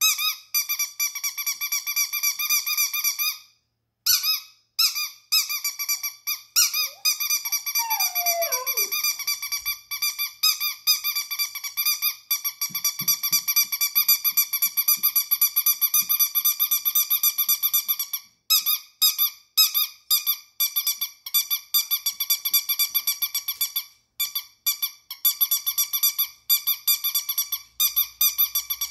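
Rubber squeaky chicken dog toy squeezed over and over in quick succession, a high squealing squeak that pulses rapidly with a few short breaks.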